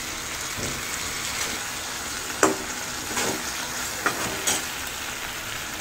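Eggplant curry sizzling in a metal kadai as a metal spatula stirs it through the spiced gravy, with a little water just added. A few sharp clinks and scrapes of the spatula against the pan sound over the steady sizzle.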